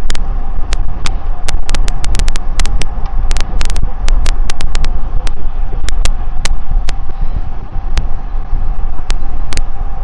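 Low rumble of wind and riding noise on a clip-on wireless mic while cycling, broken by dense digital crackles, several a second at irregular spacing. The crackles are a fault of the DJI Mic 2 connected by Bluetooth to an Insta360 X4 camera, which the owner notes does not happen with the same mic on an Insta360 X3.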